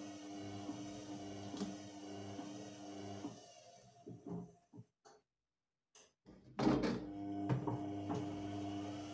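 Electrolux TimeSaver top-loading washing machine running, a steady motor hum with a faint tick about every second. About three and a half seconds in the sound fades and drops out completely for about a second, then comes back abruptly with a loud burst and the hum runs on.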